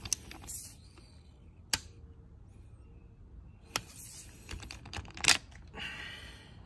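Scattered sharp clicks and knocks from hand tools and handling while a spark plug is tightened a little further, the loudest about five seconds in, followed by a short rasp.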